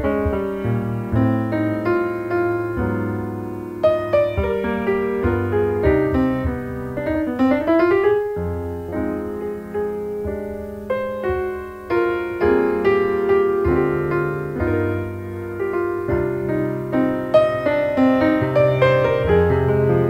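Piano music: a flowing melody of separate notes over held bass notes, with a quick upward run of notes about seven seconds in.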